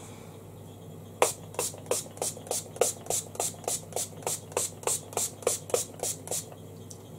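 Makeup setting spray misted from a pump bottle: about twenty quick spritzes, about four a second, starting a second in and stopping shortly before the end.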